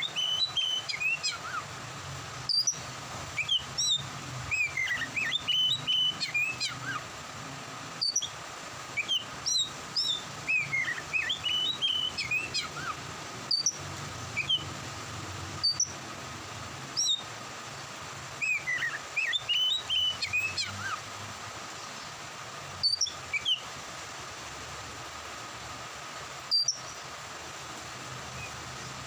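Oriental magpie-robin (kacer) singing in bursts of quick, varied whistled and chirping phrases with short pauses between them, busiest in the first two-thirds and thinning to a few single notes near the end, over a steady low background noise.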